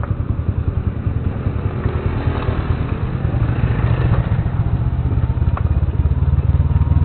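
Motorcycle engine running at low speed, heard from on board, its rapid steady pulse slowly growing louder as the bike picks its way over a wet, rocky dirt track. There is a light clatter from the rough surface and a sharp knock about five and a half seconds in.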